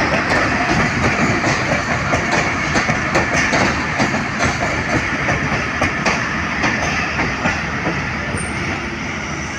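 Passenger train moving along the platform, its wheels clattering over the rail joints in a steady run of clicks that slowly grows fainter towards the end.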